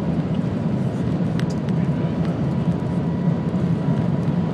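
Shanghai maglev train running, heard inside the passenger cabin: a steady low rumble with a faint steady high tone and a few light clicks.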